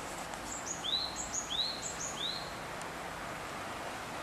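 A small songbird calling three times in quick succession, each call a short high note followed by a lower, upward-curving chirp, over a steady background hiss.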